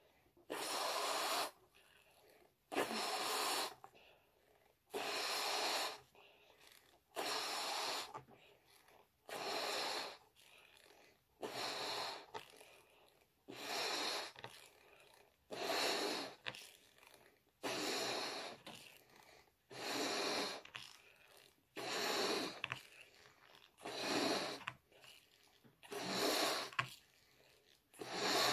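A person blowing up a balloon by mouth: a long puff of breath into it about every two seconds, with short quiet pauses to inhale between, the balloon steadily filling.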